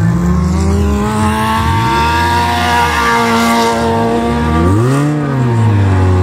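Engines of stripped-down wreck-race cars revving hard on a dirt track. Their pitch rises and falls again and again as the drivers come off and back onto the throttle through the bends, with one big rev that climbs and drops about five seconds in.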